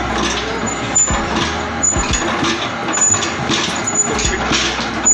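Soap punch (stamping) machine running, with a regular mechanical knock about once a second as the die presses bars, over a steady machinery hum.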